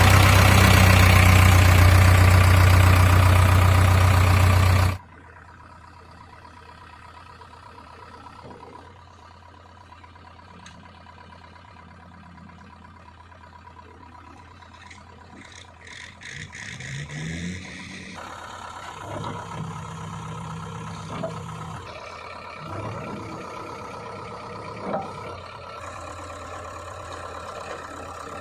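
Diesel engine of heavy earthmoving machinery running. It is very loud and close for about the first five seconds, then cuts abruptly to a quieter, steady run. Revs rise a few times, with scattered metal clanks, and from about eighteen seconds in it runs louder under work.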